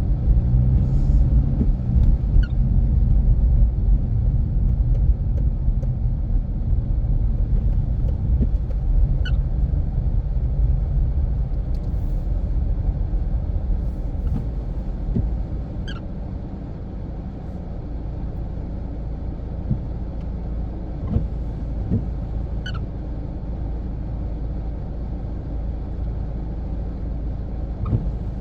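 Car driving on the road: engine and tyre rumble, the engine note strong in the first few seconds and then easing to a steadier, quieter road rumble. Faint short high chirps come every few seconds.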